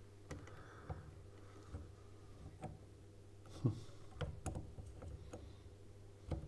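Faint clicks and small knocks of a laser module and its cable being handled and fitted into a CNC router's spindle holder, a dozen or so scattered through, the loudest a little past halfway, over a steady low hum.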